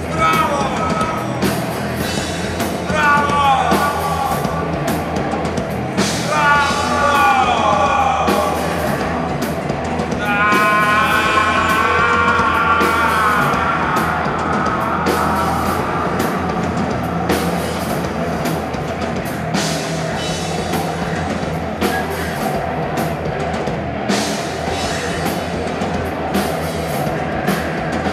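Live experimental band music: keyboards and electronics playing over drums. Three downward-sliding tones come in the first eight seconds, and a wavering held sound rises around the middle.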